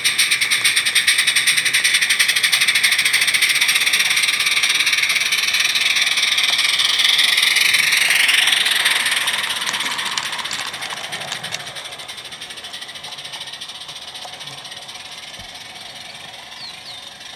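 16mm-scale Roundhouse live-steam locomotive hissing and chuffing with rapid, even exhaust beats as it hauls a short freight train past, loudest about halfway through and then fading steadily as it runs away.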